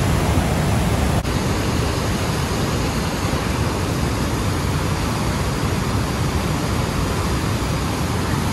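Steady rush of churning whitewater pouring out of a river dam's gates into the tailwater, with a brief dip about a second in.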